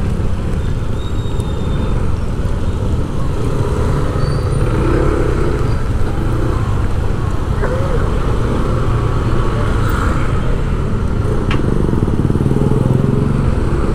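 Urban road traffic: vehicle engines running with a steady low rumble.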